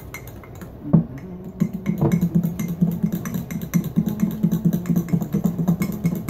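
A metal spoon stirring and beating a frothy mix of grape juice and egg yolks in a ceramic mug. After one knock about a second in, the spoon clinks against the mug in a quick, even rhythm, about four or five taps a second.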